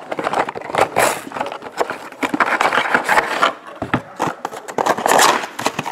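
Hands opening a cardboard trading-card box: a paper seal peeled off, then the box and its lid rubbing, scraping and knocking irregularly on the table.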